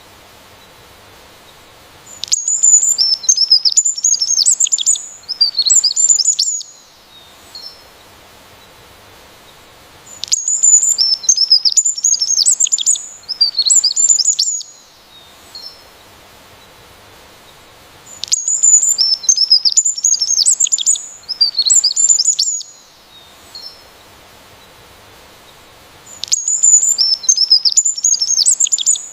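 A songbird singing rapid, varied high twittering phrases in bouts of about four seconds, one starting every eight seconds. Each bout is the same song repeated exactly, as in a looped recording.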